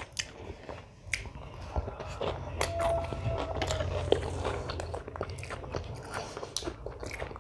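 A person chewing a mouthful of egg hakka noodles, with many small irregular clicks of the mouth.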